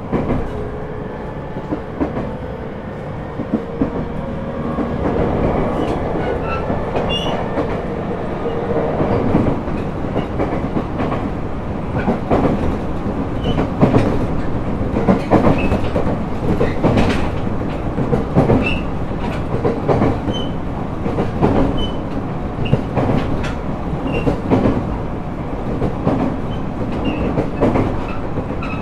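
Running sound inside a JR East E127-0 series motor car (KuMoHa E127-4) at speed, heard near the floor: a steady rolling rumble with the wheels clattering over rail joints. A faint steady tone sits under the rumble for the first several seconds.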